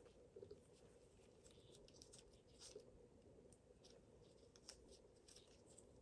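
Near silence, with a few faint, brief rustles and ticks from gloved hands handling suture thread around a feeding tube.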